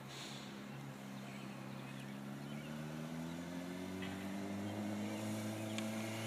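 Motorcycle engine running at a distance, its pitch rising slowly and steadily and growing a little louder as the bike accelerates across the lot.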